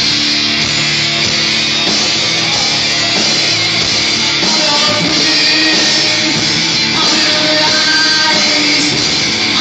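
A band playing loud music: a dense, steady mix with held notes.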